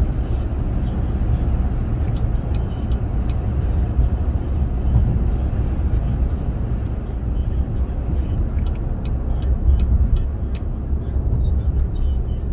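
Steady low rumble of road and engine noise inside a moving vehicle's cabin at highway speed, with a few faint light ticks now and then.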